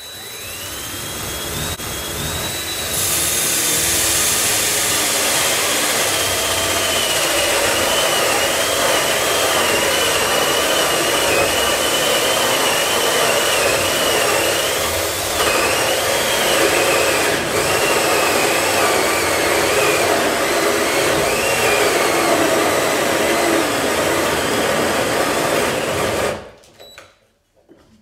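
Cordless drill turning a bi-metal hole saw, boring the knob hole through a hollow-core interior door. It winds up over the first few seconds, then runs steadily with a high motor whine that wavers and slowly drops in pitch under the cutting load, and stops abruptly near the end.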